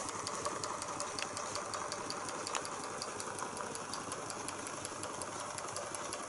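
Small toy Stirling engine with a vertical crankshaft and horizontal flywheel running steadily, giving a light, rapid, even ticking.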